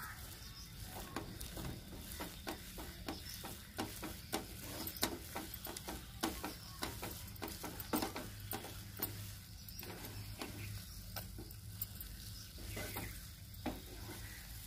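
Wooden spatula scraping and knocking against a nonstick pan while stirring a thick coconut barfi mixture of grated coconut, milk powder and sugar on low heat; irregular clicks and scrapes. The mixture is near the point where it sets.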